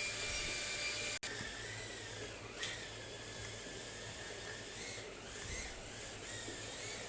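Mini toy drone's small electric motors and propellers whirring with a high whine that wavers in pitch as it hovers. The sound drops out for an instant about a second in.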